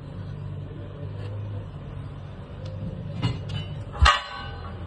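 A steady low engine hum under two sharp metal clanks that ring briefly, about three and four seconds in, the second the louder: tire tools striking a steel loader wheel rim while a tire is worked onto it.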